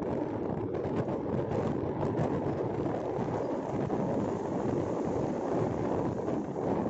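Steady rumble of road and wind noise from a vehicle driving along a highway.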